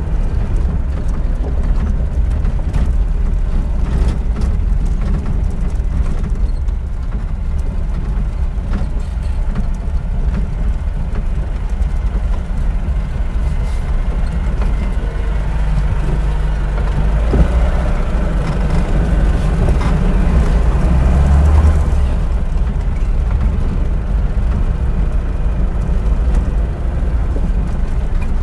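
VAZ-2121 Niva's four-cylinder petrol engine running with a steady low rumble. It swells louder for several seconds past the middle, then settles back.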